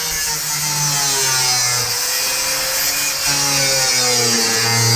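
Power tool cutting through sheet steel on a truck cab, running continuously, its pitch dipping and rising as it bites into the metal.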